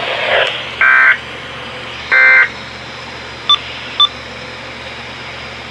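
Weather radio SAME end-of-message data bursts: two short buzzy digital tone bursts about a second apart, marking the close of an alert. Radio hiss follows, with two brief high beeps about half a second apart.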